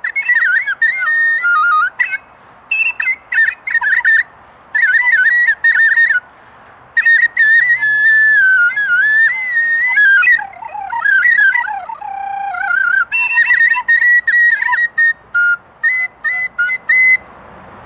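A high whistle in many short, broken phrases, its pitch warbling and gliding up and down.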